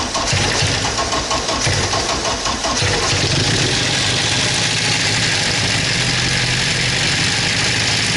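Ford Sierra engine running on its first start after new fuel lines and wiring. It runs unevenly for about three seconds, then settles to a steady idle. The crew think it sounds unwell and suspect a knock.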